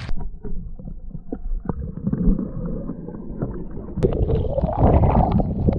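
Muffled sloshing and gurgling of seawater around the camera at the waterline while a snorkeler ducks under. About four seconds in, the sound opens up into splashing as he breaks the surface beside it.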